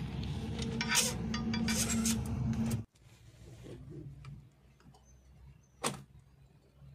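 An engine running steadily with metal clinks of a wrench working in the engine bay, cut off abruptly about three seconds in. Then quiet fumbling at a backhoe loader's ignition key with one sharp click near the end.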